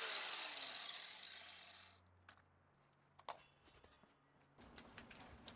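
Angle grinder with a cutoff wheel coasting down after being switched off, its whine falling in pitch and fading out about two seconds in. After that comes a single click, then light rattling of the wire mesh panel as it is picked up near the end.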